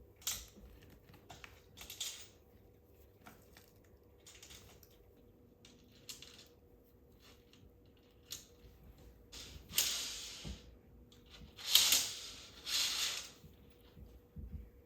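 Household handling noises: scattered light clicks and knocks, with louder rustling scrapes about ten seconds in and twice more near the end.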